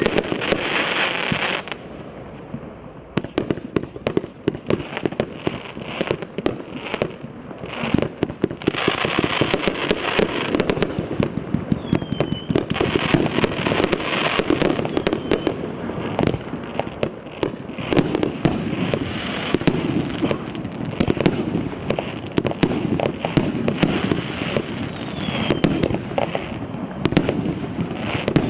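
222-shot combination fireworks cake (Russkaya Pirotekhnika RS9236 'VecherInochka', 0.8" to 1.5" tubes) firing in rapid succession: a dense run of sharp launch pops and bursts. The firing thins a little from about two to eight seconds in, then picks up again.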